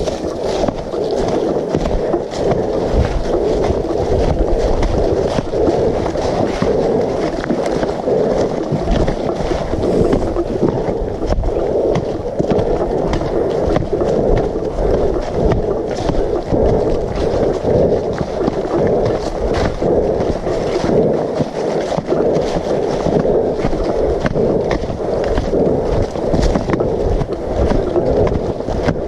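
Footsteps walking on a trail of dry leaves and stones, with irregular low thumps from the handheld camera and a loud, steady rushing noise throughout.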